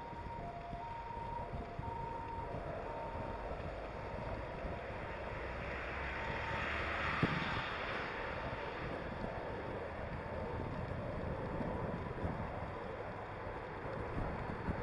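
Wind buffeting the microphone of a bike-mounted camera while riding, over steady road noise. A faint beeping that alternates between two pitches sounds in the first few seconds, and a louder rush of hiss swells and fades around the middle.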